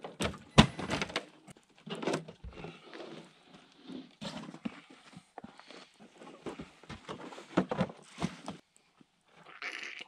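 Ice-fishing gear being unloaded from the back of an SUV: irregular clunks, thuds and rustling as bags, a sled and equipment are handled and set down, with a sharp knock just after the start and a run of thuds near the end.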